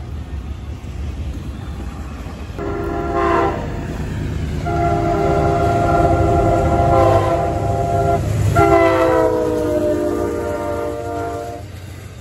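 Diesel freight locomotive's multi-chime air horn sounding three blasts, a short one and then two long ones, the last dropping in pitch, over the low rumble of the train rolling on the rails.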